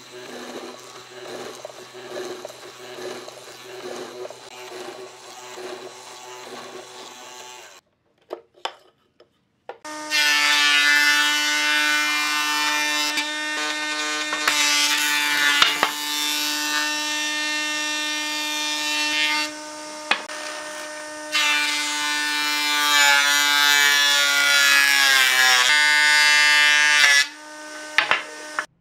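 A woodworking power tool's electric motor running loud and steady at a high pitch, dipping in level twice and briefly sagging in pitch before it stops. It comes after a quieter rhythmic stretch and a few clicks.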